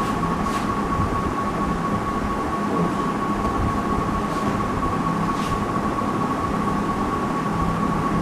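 Steady mechanical hum and hiss with a constant high-pitched whine, the room's background noise. A few faint short squeaks of a marker writing on a whiteboard are heard over it.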